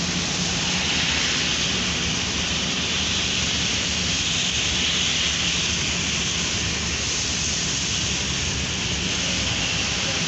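Heavy rain heard from inside a moving car's cabin: a steady hiss of rain and tyres on the wet road, with a low hum underneath.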